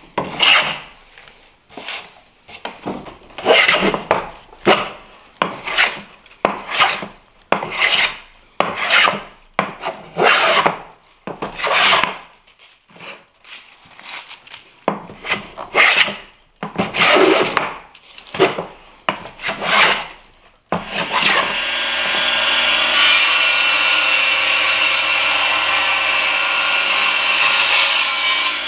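A wooden-bodied hand plane taking long shavings off the edge of a poplar board, in a steady run of strokes a little more than one a second. About twenty seconds in it changes suddenly to a table saw running steadily. A couple of seconds later a louder hiss joins it as the blade cuts through a board.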